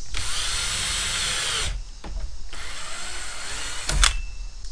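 Power drill with a hole saw cutting a socket hole through a panel. It runs loud with a whining motor for about a second and a half, then cuts more quietly for another two seconds, with a sharp click about four seconds in.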